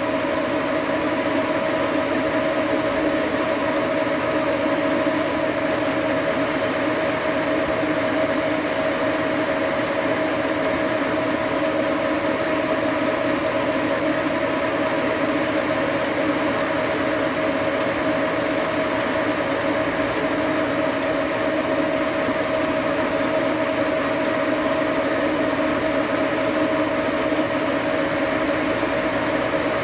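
Metal lathe taking a turning cut on a hose barb with a carbide insert tool: a steady metal-cutting screech with a held whine, the machine's motor and gearing running underneath. A faint high thin tone comes and goes three times.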